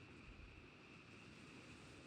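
Near silence: faint outdoor night ambience of light wind, with a few soft low buffets on the microphone a little after the start and a faint steady high-pitched hum underneath.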